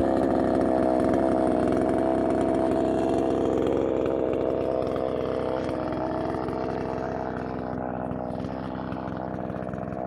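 Two-stroke chainsaw idling steadily with a slight waver in pitch, slowly growing fainter toward the end.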